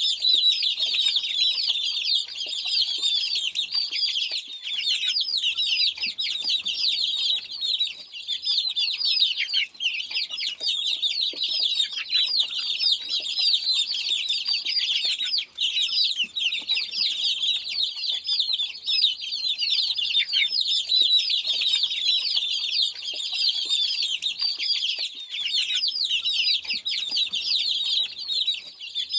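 Many domestic chicks peeping together in a continuous, overlapping chorus of short high chirps.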